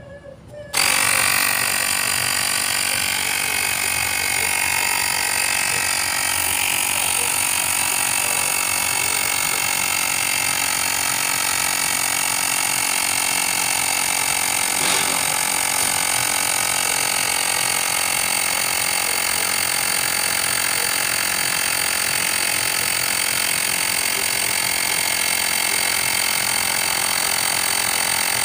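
Cordless electric tyre inflator switching on about a second in and running steadily, pumping up a scooter's rear tyre with a freshly fitted inner tube.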